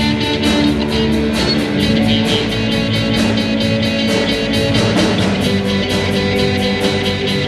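Live rock band playing an instrumental passage: guitars holding sustained notes over a drum kit keeping a steady beat on the cymbals.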